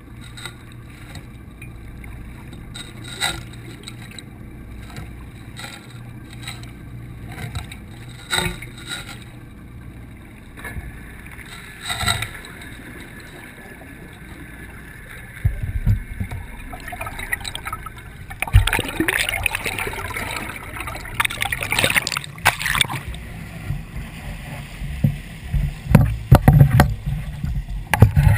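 Muffled underwater sound through a GoPro's waterproof housing: a steady low hum with a few knocks, then from about halfway louder rushing and splashing water as the camera is moved near the surface and lifted out.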